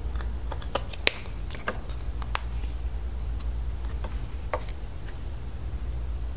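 Light plastic clicks and taps from handling Play-Doh tubs and lids while working the dough, mostly in the first couple of seconds with a few more about four and a half seconds in, over a steady low hum.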